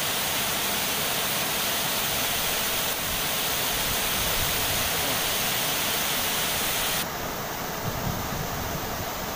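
Water pouring over a weir into a river pool, making a steady rushing. About seven seconds in the hiss turns duller and a little quieter, and a few low bumps come near the end.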